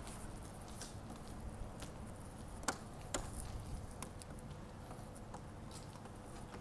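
A few sharp plastic clicks and taps as the snap-on bottom border of a plastic number plate holder is pushed into place by hand, the loudest pair about two and a half to three seconds in.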